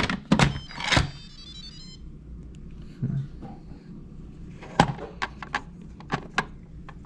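Plastic lid of an Instant Pot electric pressure cooker being pressed down and twisted shut, with sharp clicks and knocks, followed by a short electronic chime of stepped high tones about a second in. Later a cluster of quick clicks as the steam-release valve knob on the lid is turned and set.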